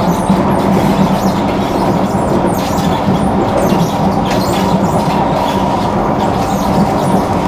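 Singapore MRT train running along the line, heard from inside the carriage: a steady rumble of wheels on rail with a constant hum.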